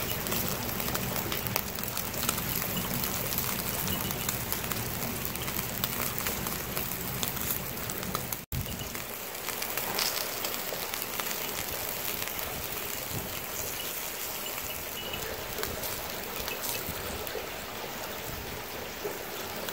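Pork sizzling and crackling on a small charcoal grill over the steady rush of a mountain stream. The sound drops out for an instant a little under halfway through.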